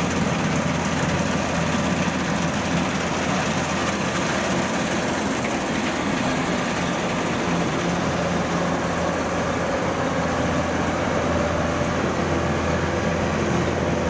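Heavy diesel farm machinery running steadily, a continuous engine drone that holds the same pitch and level throughout.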